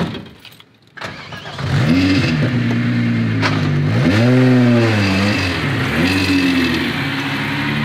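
Sharp knock, then the 1991 Volkswagen Jetta's engine cranks and catches just under two seconds in on a restart after being flooded. It is revved up and down three times, the middle rev the highest, then settles to idle; the owners believe the engine is blown and burning coolant.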